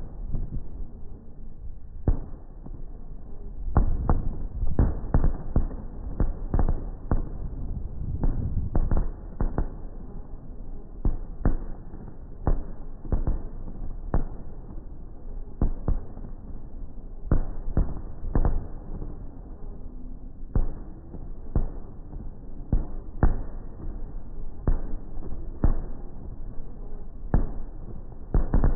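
Aerial firework shells bursting in a long, irregular run of booms over a low rumble, packed most tightly a few seconds in and continuing at a slower pace to the end.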